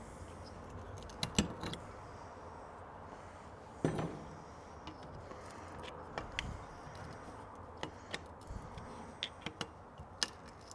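Light metallic clicks and clinks of small Carter AFB carburetor parts and hand tools being handled on a workbench during teardown, with one sharper knock about four seconds in.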